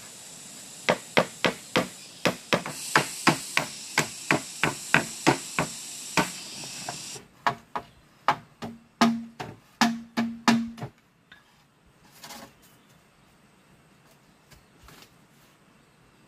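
A rapid run of sharp tool strikes on a bamboo pole, about three a second, some with a short hollow ring from the bamboo, stopping about eleven seconds in.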